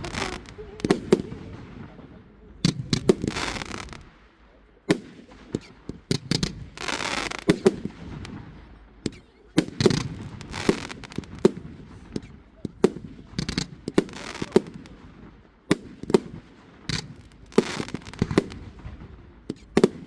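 Aerial fireworks display: shells bursting in a run of sharp, irregularly spaced bangs, with longer crackling stretches about three and seven seconds in.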